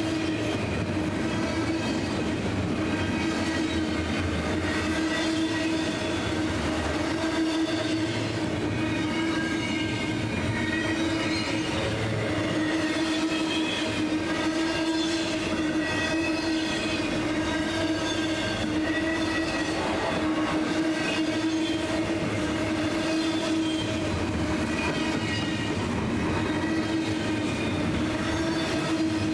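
Double-stack intermodal freight cars rolling past close by at a steady speed. The wheels run on the rails with a steady whining tone over the rolling noise.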